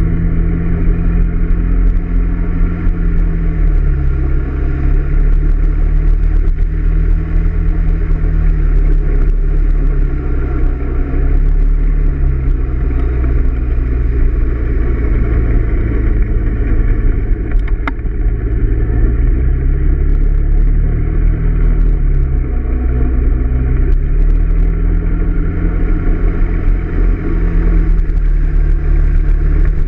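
Honda PCX 125 scooter's single-cylinder four-stroke engine running under way, its pitch falling and rising several times as the throttle is eased and opened through the bends. Heavy low wind rumble on the microphone runs under it.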